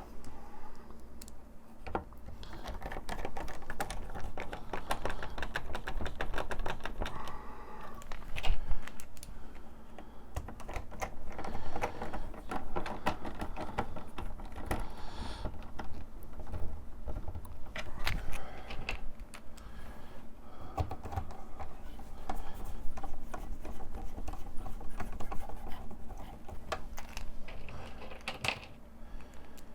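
Screwdriver driving small screws into a digital instrument cluster's top circuit board, in repeated runs of rapid clicking a few seconds long.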